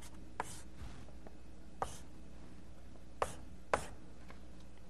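Chalk tapping and scraping on a blackboard as code is written: several short, sharp taps spread out over a few seconds, with a low steady hum underneath.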